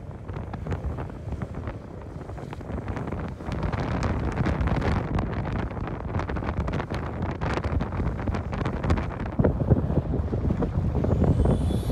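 Strong, gusty wind buffeting the microphone with rumbling and crackling, over wind-whipped lake waves washing in. The gusts get louder about three and a half seconds in.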